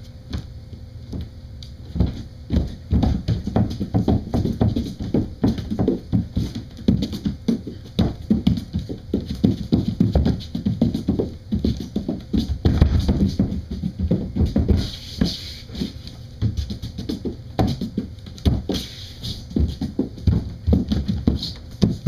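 Bare feet stamping and slapping on a wooden floor in fast, irregular Irish dance rhythms, starting about two seconds in.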